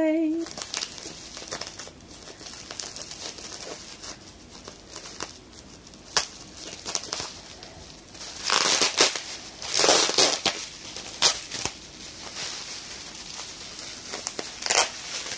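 Plastic bubble wrap rustling and crinkling as it is handled and pulled open, with louder bursts of crinkling around nine and ten seconds in and a few sharp single crackles.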